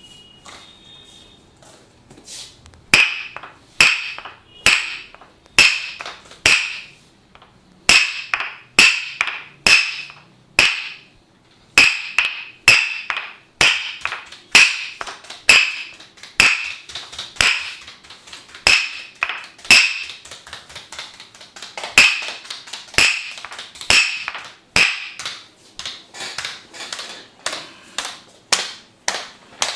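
Percussive massage strokes: sharp taps struck on the body in a steady rhythm, about one to two a second, each dying away quickly. They begin a couple of seconds in, after a near-quiet start.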